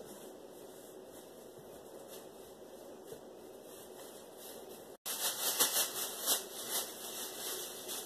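Angelsounds fetal doppler resting on a pregnant belly, its speaker giving a steady static hiss. About five seconds in, after a split-second dropout, louder scratchy rustling comes through for a couple of seconds, then the sound settles back to hiss.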